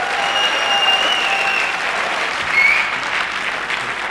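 Live audience applauding, with a few thin high tones over the clapping, one short rising one about halfway through.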